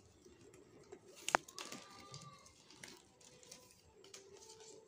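Flat plastic craft wire strips being handled and knotted by hand: soft rustling and light clicks of plastic against plastic, with one sharp click about a second in.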